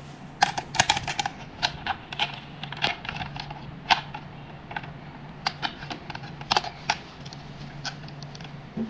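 Irregular clicks and knocks of hard plastic and metal parts as the ball roller head of a roller slimming machine's handle is handled and separated from its plastic housing, over a steady low hum.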